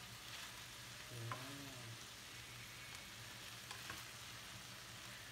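Chopped chicken sisig browning in a frying pan, sizzling steadily, with a few light clicks from a wooden spatula stirring.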